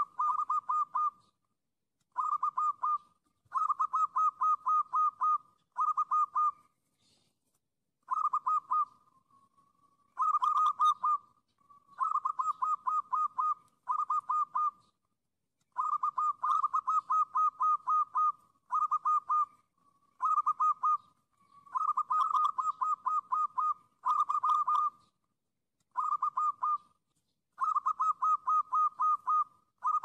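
Zebra dove (perkutut) calling: repeated bursts of rapid, evenly spaced staccato coos, each burst a second or two long, with short pauses between and one drawn-out note partway through.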